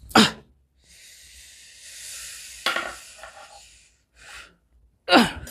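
A person's short, loud vocal cry falling steeply in pitch, then a breathy hiss lasting about three seconds, then a second falling cry near the end.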